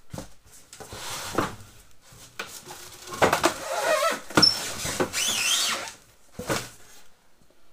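A heavy steel tool cart being tilted and shifted in its packaging: styrofoam packing blocks rubbing, scraping and squeaking against the cabinet and box, with a few knocks. The squeaking and rubbing are loudest from about three to six seconds in.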